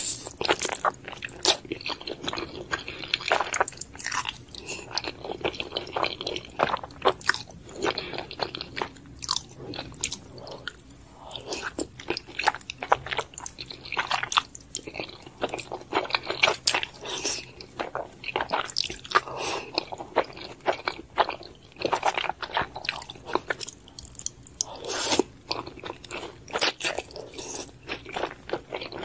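Close-miked mouth sounds of eating black bean sauce noodles (jjajangmyeon) with chopsticks: slurping strands in and chewing, a dense irregular run of wet smacks and bites with brief pauses.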